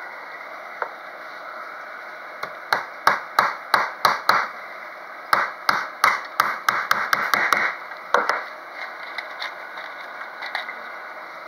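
Small hammer driving a thin frame nail into the wooden top bar and end bar of a beehive frame: a run of about seven sharp taps, roughly three a second, then after a short pause a faster run of about nine taps, and one more tap after that.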